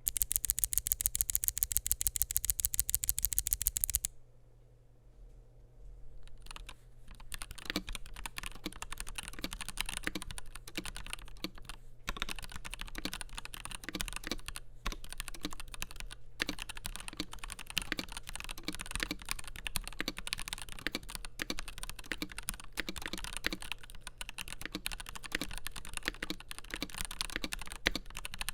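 Typing on a FiiO KB3 mechanical keyboard with Gateron G Pro 3.0 Yellow linear switches, a stainless steel plate and translucent polycarbonate keycaps. It opens with about four seconds of very fast, evenly spaced loud clicks. After a short pause, steady irregular keystroke clicks run on.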